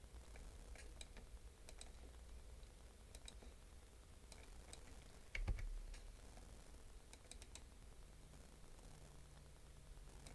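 Faint, scattered clicks from a computer mouse and keyboard as a troublesome mouse is worked, with one louder dull thump about five and a half seconds in.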